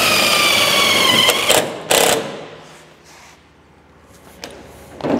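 Cordless drill driving a self-tapping screw into a steel bonnet: the motor whine drops slightly in pitch and stops about a second and a half in. Two short knocks follow about two seconds in.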